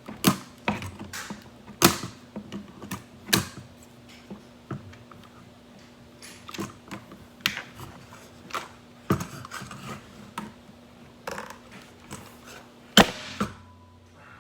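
Plastic toy packaging being handled and pulled at while a toy is worked free of it: irregular clicks, taps and knocks, with a few louder knocks among them.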